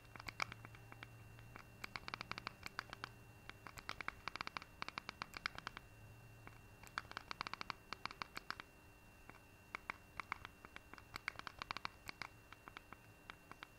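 Faint bursts of rapid clicks, each a step of the cursor across a Fire TV on-screen keyboard as a web address is typed in letter by letter, with short pauses between runs. Under them is a faint steady hum and a thin high tone.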